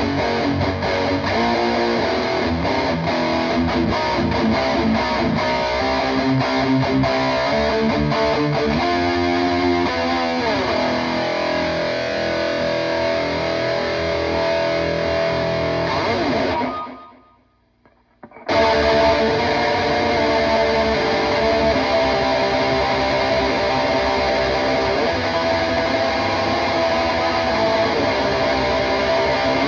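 Electric guitar, a PRS McCarty 594 with Seymour Duncan pickups, played with distortion through a PRS Archon 50 tube amp head and a cabinet loaded with Celestion Vintage 30 speakers, riffing and holding chords. A little past the middle the playing stops and the sound drops to near silence for about two seconds, then the guitar comes back in.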